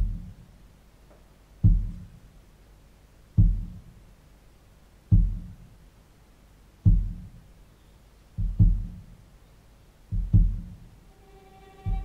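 Cello music played through hi-fi loudspeakers in a room: deep, heartbeat-like bass thumps about every two seconds, doubling into paired beats, then a sustained bowed note comes in near the end.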